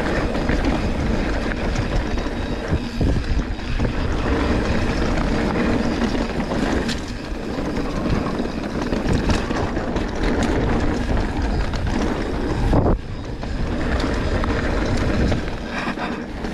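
Enduro mountain bike riding fast down a dirt trail: tyres rumbling over the ground, wind rushing over the camera microphone, and the bike's chain and frame rattling with many small knocks over bumps. The rush breaks off briefly about 13 seconds in.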